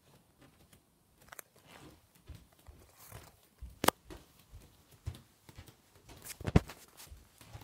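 Handling noise from a phone being moved and carried: irregular rustles, clicks and knocks, with two sharper knocks about four and six and a half seconds in.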